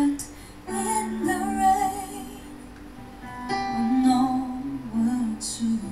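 A woman singing a slow ballad live into a microphone, holding long low notes over soft instrumental accompaniment.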